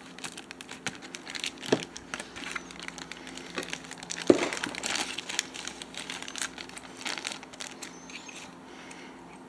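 Clear plastic packaging crinkling and rustling as it is handled and opened, with a couple of sharper taps about two and four seconds in; the crackle thins out near the end.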